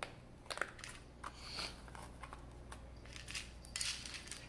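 A metal spoon clinking and scraping against a stainless steel dog bowl as wet food is mixed into dry kibble: a string of short clicks with a few longer scrapes.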